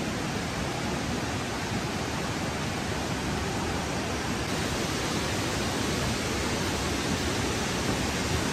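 Steady, even rushing of a river and waterfall in the gorge below, a constant roar of falling water.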